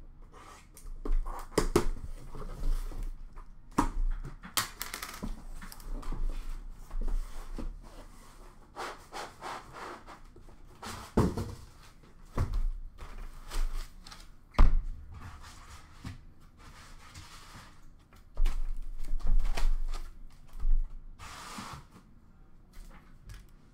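A cardboard shipping box and its foam insert being handled: scraping and rubbing with scattered knocks and thuds, the loudest about fifteen seconds in, and a stretch of busier rustling near the end.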